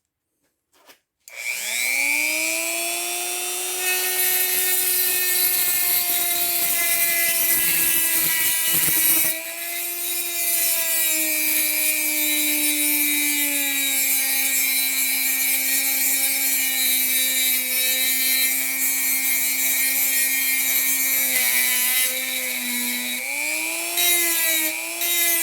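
Cheap Dremel-style rotary tool spinning up about a second in and grinding a steel hacksaw blade: a steady motor whine under a harsh high grinding hiss. The pitch sags now and then as the bit is pressed into the metal and climbs again near the end.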